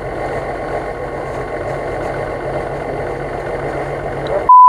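Vehicle engine idling steadily. Near the very end a loud, steady one-tone beep cuts in over it and drowns everything else out.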